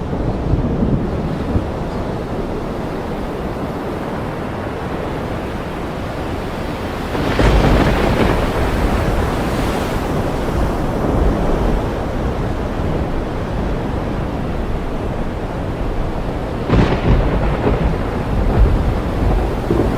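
Thunderstorm recording: a steady wash of rain and ocean surf, with thunder breaking in suddenly about seven seconds in and again near seventeen seconds, each peal rumbling on for a few seconds.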